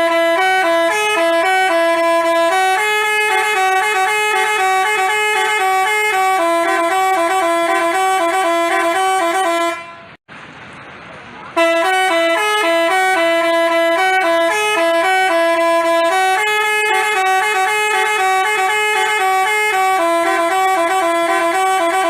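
Telolet basuri musical horn playing a melody of stepped, held notes, several tones sounding together. It breaks off briefly about ten seconds in, then starts the tune again.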